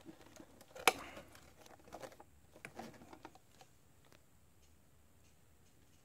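Handling noise from the plastic housing of an ultrasonic cleaner being turned over in the hands: one sharp knock about a second in, then a few light clicks and rustles that die away after about three and a half seconds.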